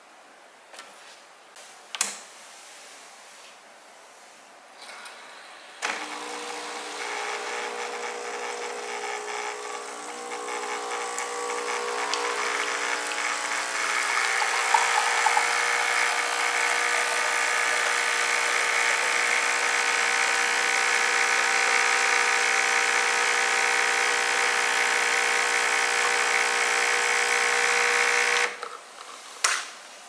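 A Breville Bambino espresso machine's pump running as it pulls an espresso shot: a steady buzzing hum that starts suddenly about six seconds in, grows louder over the next several seconds, holds steady, and cuts off shortly before the end. A few clicks come first as the machine is handled.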